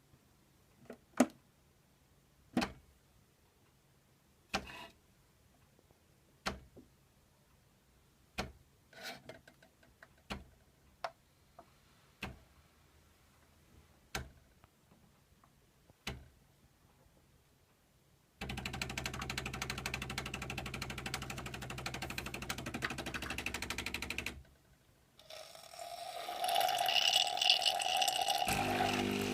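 A series of sharp single clicks about every two seconds, then a Bosch Tassimo coffee machine brewing a hot chocolate disc: its pump buzzes steadily for about six seconds, stops briefly, and starts again with a louder hiss as the drink dispenses.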